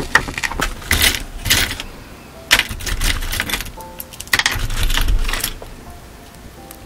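Small metal and pearl earrings clinking and jingling as they are handled and lifted out of a velvet-lined earring box close to the microphone, in five bursts of light clicks and jangles.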